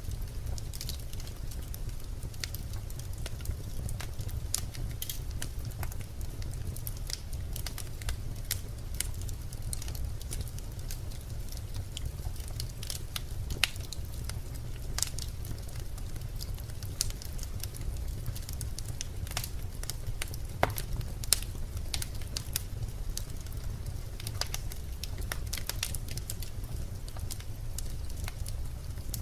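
Birch logs burning in a fireplace: a steady low rumble of the flames under frequent, irregular sharp crackles and pops, with a few louder snaps scattered through.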